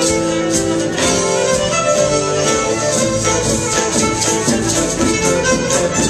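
Live Celtic-fusion band music: a fiddle plays the lead melody over drums, guitar and keyboard, with a steady drumbeat.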